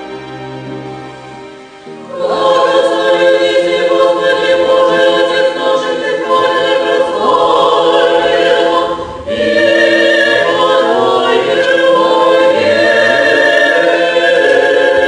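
Orthodox church choir singing, many voices together. It comes in loud about two seconds in after a softer musical lead-in, with a brief break just past the middle.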